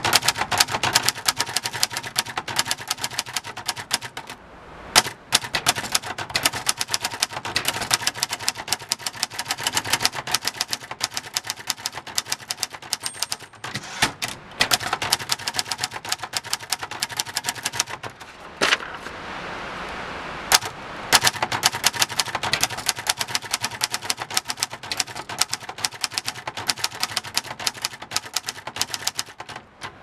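A 1969 Hermes Rocket manual portable typewriter being typed on at speed: a fast, uneven run of sharp key clacks as the typebars strike the platen, with a few brief pauses and some louder single strokes.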